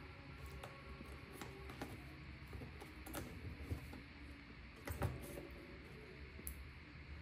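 Scattered light taps and knocks of a baby monkey's hands and feet on a stack of books and a wooden dresser as it climbs and paws around, the loudest a couple of knocks about five seconds in, over a faint steady low hum.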